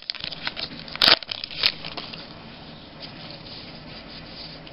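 A stack of cardboard baseball trading cards being flipped through in the hands: two sharp card flicks about a second in, then soft sliding and rubbing of the cards against each other.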